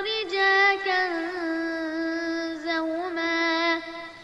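A young reciter's voice in melodic Quran recitation, drawing out the final vowel of a word as one long sung note with small ornaments. The pitch steps down slightly about a second in, and the note fades near the end.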